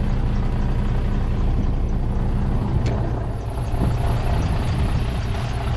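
Large truck's diesel engine idling steadily.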